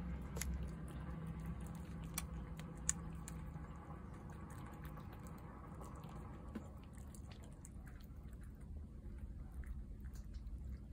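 Tabby cat eating wet cat food from a plate: soft chewing and wet mouth sounds with scattered sharp clicks, over a low background hum that fades during the first few seconds.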